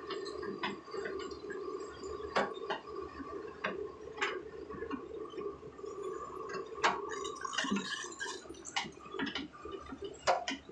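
Crawler excavator running with a steady engine hum while digging, overlaid by sharp clicks and knocks at irregular intervals, the loudest about seven seconds in and near the end.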